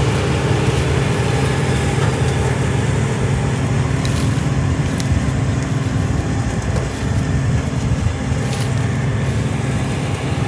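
Engine of a sweet corn harvester running steadily under load while picking, a constant low hum.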